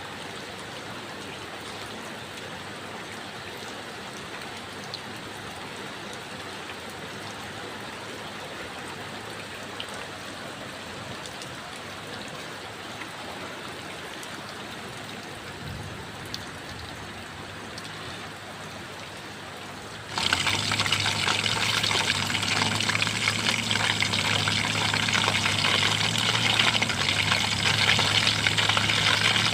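Steady noise of falling and running water. About two-thirds of the way through it jumps suddenly much louder and brighter, with a low steady hum under it.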